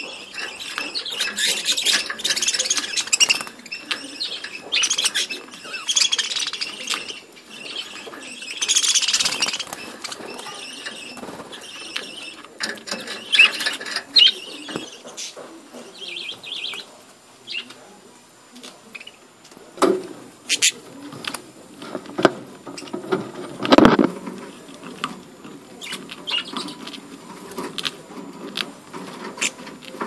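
A flock of budgerigars chattering and chirping, dense for the first third and sparser after that. Scattered knocks run through it, with a louder thump about three-quarters of the way through.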